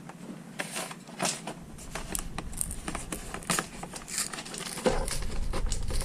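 A collector box's packaging being opened and handled by hand: crinkling and rustling with many irregular small clicks and taps.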